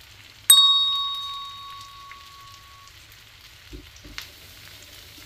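A single bright metallic ding about half a second in, one clear ringing tone that fades away over about two seconds. A couple of faint soft knocks follow near the end.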